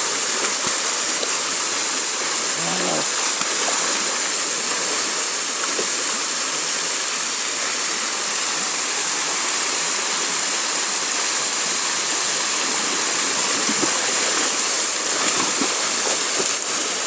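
Flowing river water rushing steadily, a continuous hiss of moving water.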